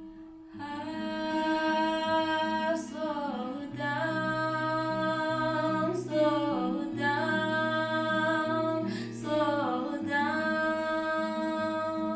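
Woman singing long held notes, sliding down in pitch between them about every three seconds, over acoustic guitar.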